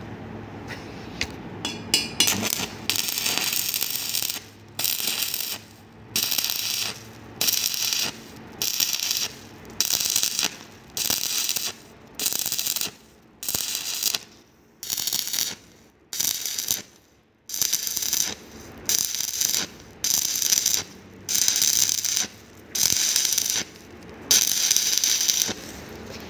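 Stick (MMA) welding arc on a 50 mm steel pipe joint, 2.5 mm electrode at 110 A, crackling in short bursts of about a second each with brief pauses. The arc is struck and broken over and over, a strike-and-break technique used to keep from burning through the pipe wall.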